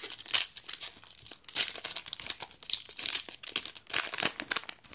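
Foil Yu-Gi-Oh booster pack wrapper being torn open and crinkled by hand: an irregular run of sharp crackles and rustles.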